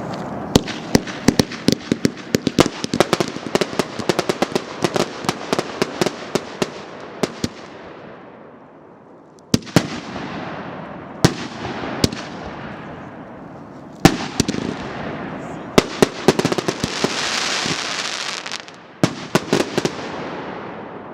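LDC309 Armada multi-shot fireworks cake (1.2-inch and 2-inch shells) firing: a rapid run of bangs for about seven seconds, then single heavier bursts a second or two apart, each followed by a hissing crackle.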